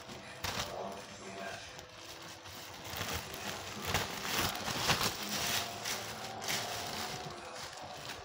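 Plastic bread bag crinkling and rustling as it is handled, in irregular bursts that are loudest about four to five seconds in.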